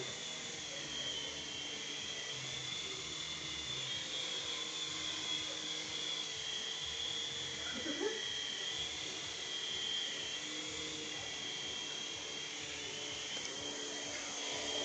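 Small remote-control toy helicopter in flight, its electric motor and rotor giving a steady high-pitched whine.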